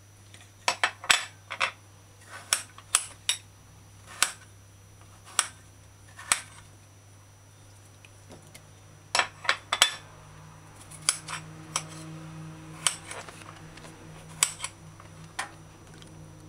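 Irregular sharp clicks and knocks of a knife, a small plate and raw potato cubes against a glass bowl while potatoes are cubed by hand and dropped in, with a pause about halfway through.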